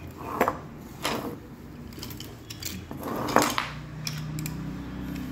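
Metal engine parts and tools clinking as they are handled during a motorcycle engine teardown: three sharp clinks, the loudest about three seconds in, with light scraping between them.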